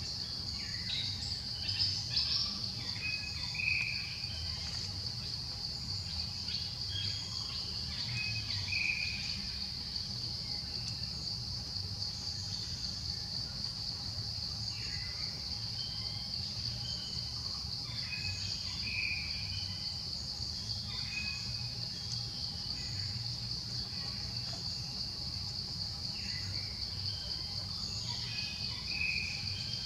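Steady, high-pitched drone of insects, with a few short bird chirps scattered through it.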